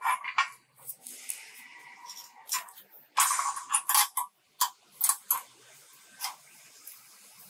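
Pliers wrapping and twisting steel tie wire around rebar crossings: a string of sharp metallic clicks, snaps and scrapes, with a longer rasping twist about three seconds in.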